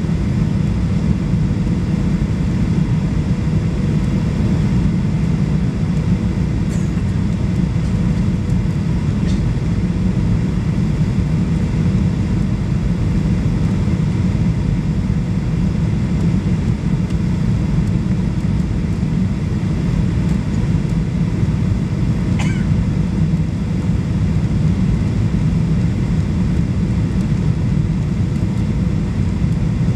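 Steady low rumble of a Boeing 737 Next Generation airliner's engines and airflow heard inside the passenger cabin while descending toward landing, with a faint steady hum above it.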